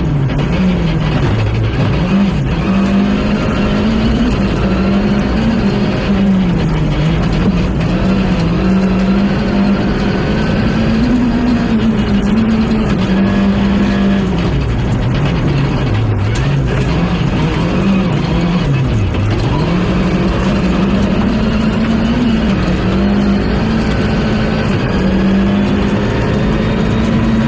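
Rally car engine driven hard along a stage, its pitch climbing under acceleration and dropping repeatedly as it brakes and shifts gear, over steady road and tyre noise.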